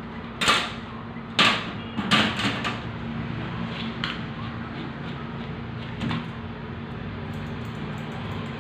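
A few sharp knocks and clatters, the plastic slicker brush being picked up and handled on the grooming table, over a steady machine hum. The loudest knocks come about half a second and a second and a half in, then a quick cluster about two seconds in, with lighter ones around four and six seconds.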